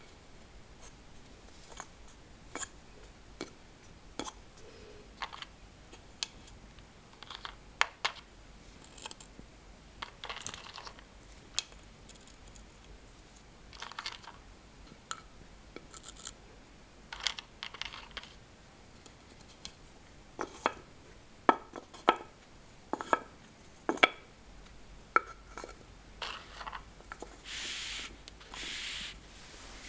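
Wooden pegs of a DogSmart puzzle board being lifted out and set back in their wells by hand: scattered wooden clicks, knocks and scrapes, with the sharpest knocks coming in a run past the middle. Two short rubbing sounds near the end.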